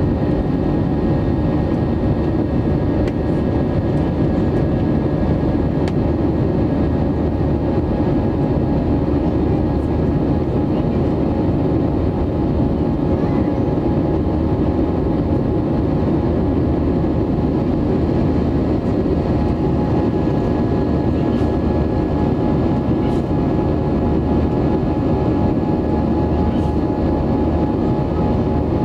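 Cabin noise of an Airbus A320-232 in flight, heard from a window seat over the wing: its IAE V2500 jet engines and the airflow give a steady rumble with a few steady whining tones, running at climb power just after takeoff.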